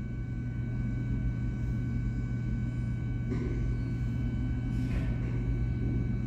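A steady low hum with faint steady whistling tones above it, and two brief soft hisses about three and five seconds in.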